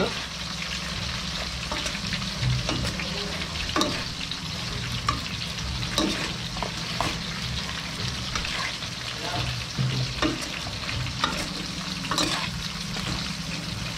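Squash shoots sautéing in a hot pan with tomato and shrimp paste, a steady sizzle, with occasional clicks of the stirring utensil against the pan.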